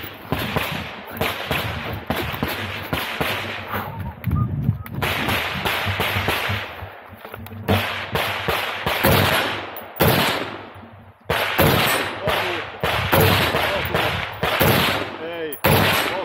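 Firearm shots in quick strings, often several a second, each with a short echoing tail, broken by brief pauses between strings.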